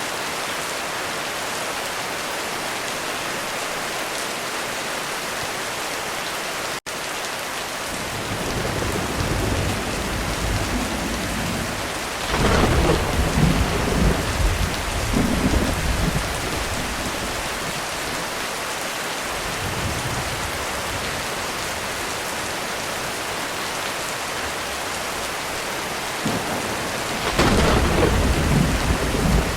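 Heavy rain falling steadily with rolling thunder: deep rumbles build about eight seconds in, peak in a loud roll a few seconds later, fade, and a second loud roll comes near the end. The rain drops out for an instant about a quarter of the way in.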